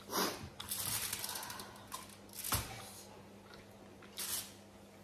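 Aluminium foil tray crinkling under fingers in a few short bursts. The longest burst is a run of quick crackles lasting about a second, starting half a second in.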